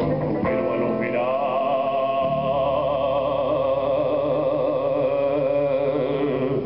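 Live band music with electric guitars: a singer holds one long note with vibrato, from about a second in until near the end, over sustained low chords.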